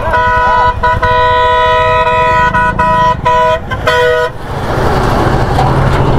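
A Tata truck's horn sounds a long multi-tone blast, broken by a few short gaps, for about four seconds and then stops, over a low engine rumble. The truck then passes close by with a rush of engine and road noise.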